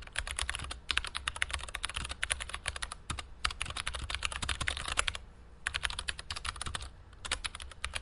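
Computer keyboard typing: rapid keystrokes in quick bursts broken by brief pauses, as a line of code is typed out.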